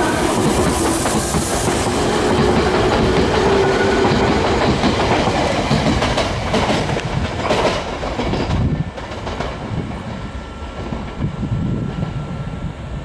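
Nankai Main Line electric train passing close by: a steady rushing rumble with wheels clicking over the rail joints, a burst of clicks just before the loudness drops suddenly about eight and a half seconds in, leaving a quieter train rumble.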